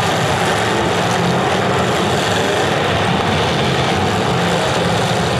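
Several demolition derby cars' engines running and revving together, a loud steady mix of engine noise with wavering rises and falls in pitch.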